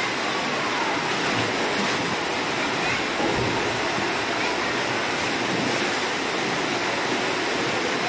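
Steady rush of water streaming down a water slide and splashing into the pool below.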